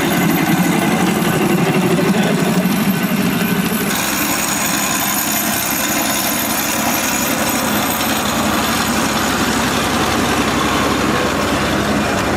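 Ride-on scale trains running past on their track. For about the first four seconds a small live steam locomotive passes with a dense rattling rumble. Then the sound switches abruptly to a ride-on scale diesel locomotive whose small onboard engine runs steadily as it passes, with its boxcars rolling behind.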